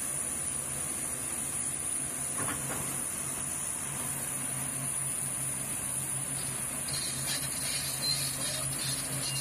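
AHT6000S slip-form concrete paver running steadily while paving: a constant engine hum under a thin, high-pitched whine.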